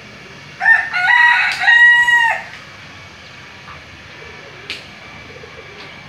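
A rooster crowing once, a cock-a-doodle-doo of a few joined syllables ending in a long held note, lasting about two seconds from about half a second in.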